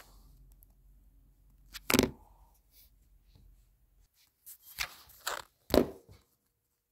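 Handling noise from the phone or camera that is filming as it is gripped and moved: a single knock about two seconds in, then a quick run of several bumps and rubs near the end, and quiet between them.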